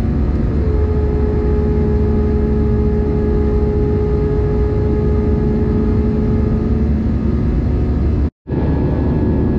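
Cabin noise of an Airbus A321-200 in flight, heard from a window seat over the wing: a loud, steady engine and airflow roar with a steady hum of several tones. The sound cuts out for a split second a little past eight seconds in, then resumes unchanged.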